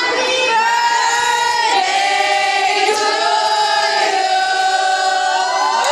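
A crowd of party guests singing together in unison, holding long drawn-out notes.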